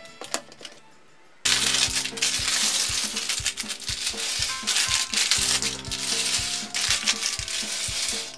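Plastic parts bag being opened and crinkled, and small plastic bricks clattering out onto a wooden table: loud and dense from about a second and a half in, over background music.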